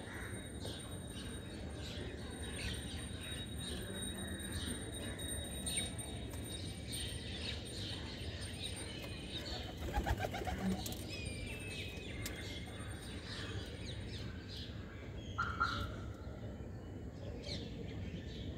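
House sparrows chirping over and over in short, high notes, with a quick flurry of wingbeats about halfway through as a sparrow flies in to the seed. A louder, lower chirp comes a few seconds later.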